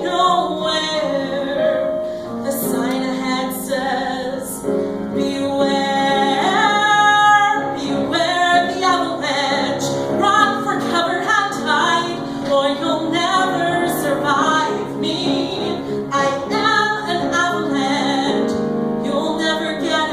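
A woman singing a musical theatre song with piano accompaniment.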